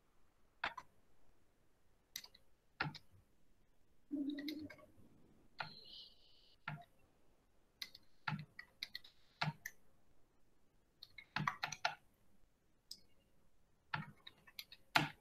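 Faint, irregular key clicks, single and in short runs, with quiet gaps between, typical of a sum being keyed into a calculator or keyboard.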